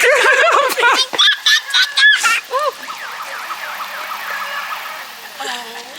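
Loud, overlapping, high-pitched wavering cries for about the first two and a half seconds, then dying down to faint background sound.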